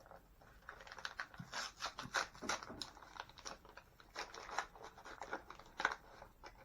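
Small toy packaging being handled and torn open by hand: an irregular run of short scratches, crinkles and clicks.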